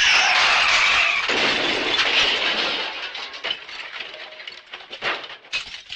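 Smash sound effect: a sudden loud crash of breaking glass and debris, then pieces clattering and tinkling down for several seconds, with a last few sharp clinks near the end.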